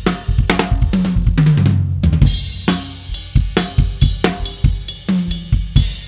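Tama Starclassic drum kit being played: a tom fill stepping down in pitch from the high toms to the floor tom about a second in, then a steady beat on bass drum, snare and cymbals.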